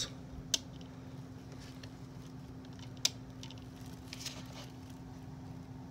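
A few light clicks and taps from handling small plastic doll accessories on the cardboard playset, the sharpest about half a second in and about three seconds in, over a faint steady hum.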